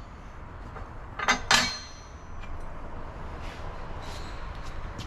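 Two quick metallic clinks of steel hand tools or parts knocking together, ringing briefly, about a second and a half in, over a steady low background hum.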